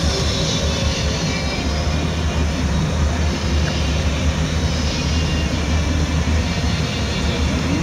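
Car engines running at low speed with a steady low rumble, with no sharp revving.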